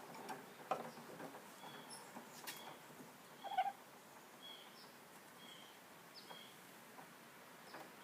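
A small bird chirping faintly, with short high chirps about once a second. Light clicks and one brief louder sound come about three and a half seconds in.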